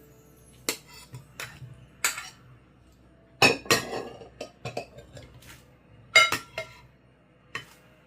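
Kitchen utensils and dishes clinking and knocking while fruit salad is being prepared: a string of separate knocks, the loudest about three and a half and six seconds in, some ringing briefly.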